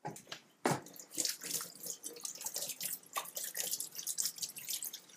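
Kitchen tap running into the sink, with uneven splashing as something is rinsed under the stream.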